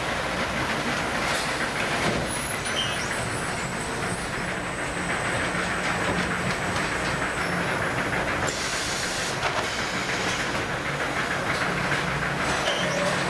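Automatic sack-palletizing machinery running: a steady mechanical din with a few brief clicks.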